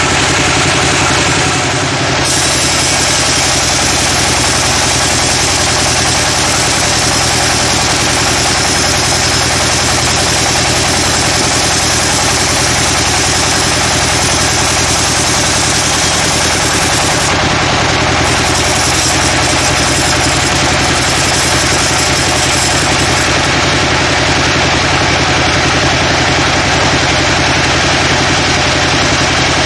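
Band sawmill sawing a teak log lengthways over the mill's steady engine drone. A higher hiss from the blade in the wood comes in about two seconds in, breaks briefly, and fades out over the last several seconds.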